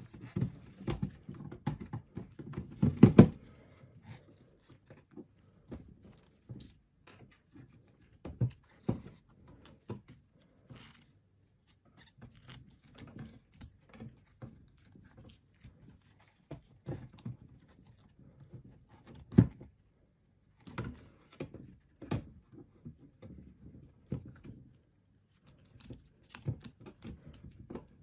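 Sealed 12 V lead-acid batteries being set into a battery cartridge tray and their wires and spade connectors handled: irregular knocks, thumps and small clicks, with a cluster of louder knocks about three seconds in and a single sharp knock about two-thirds of the way through.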